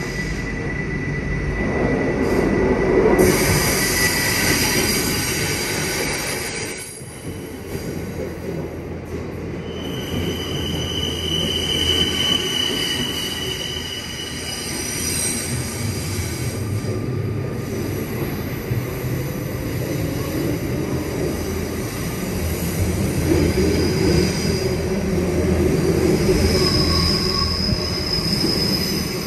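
RER C double-deck commuter trains in an underground station: a steady rumble of the cars on the track, with high-pitched wheel squeals coming and going, one at the start, another about ten seconds in lasting a few seconds, and a higher one near the end.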